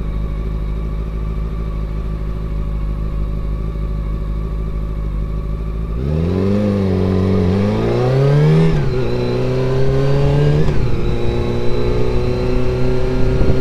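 Honda CBR400RR (NC23) inline-four engine, heard through the helmet microphone. It runs steadily at low revs for about six seconds, then the bike accelerates hard, the engine note climbing and dropping sharply twice at upshifts, and settles into a steady cruise near the end.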